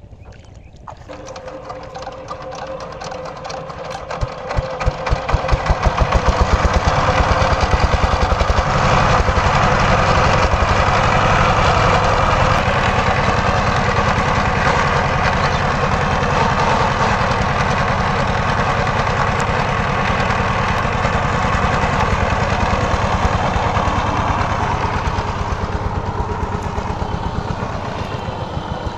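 Single-cylinder diesel engine of a two-wheel power tiller thumping into life about a second in, revving up over the next few seconds and then running loudly and steadily as the tiller pulls its cage wheel through the wet paddy. Its beat slackens a little near the end as it eases off.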